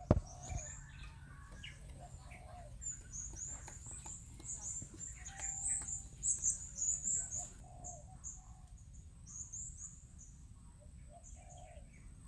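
Small birds chirping outdoors: rapid runs of short, high notes, busiest in the middle few seconds, over a faint steady background. A single sharp click sounds right at the start.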